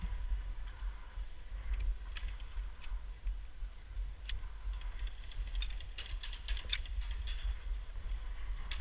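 Airsoft guns firing: scattered sharp clicking shots, then a quick run of several shots about six to seven seconds in, over a steady low rumble.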